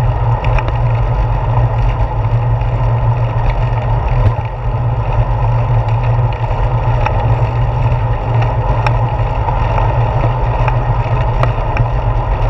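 Wind and road rumble on a handlebar-mounted GoPro Hero 4 as a bicycle rides along a concrete path: a steady low rumble with a rushing hiss, and scattered light clicks and knocks from bumps in the path.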